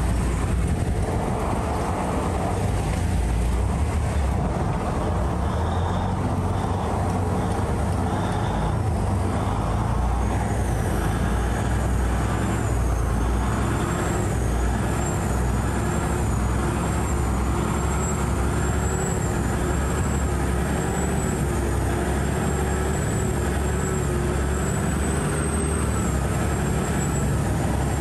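Canal express boat's diesel engine running steadily under way: a loud, unbroken low drone. A thin, wavering high whine rides above it from about ten seconds in.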